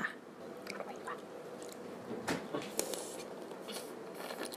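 Close-up eating sounds: chewing with scattered small clicks and taps over a faint steady hum.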